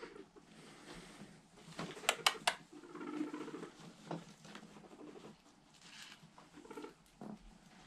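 Guinea pigs moving over the cage bedding toward a bowl of greens, with short low calls; three sharp clicks come in quick succession about two seconds in.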